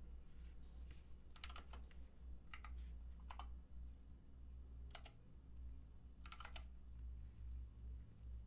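Computer keyboard keystrokes in about five short runs of clicks, as terminal commands are typed, over a low steady hum.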